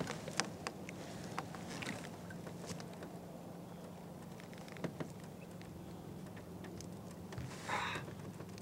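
Light ticks and taps against an aluminium boat hull, with small water splashes as a trout is let go over the side, over a steady low hum. A short splash-like rush comes near the end.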